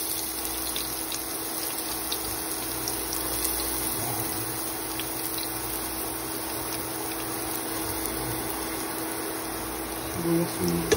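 Chopped onion sizzling steadily in hot oil in a nonstick pan as it sautés, with a steady low hum underneath.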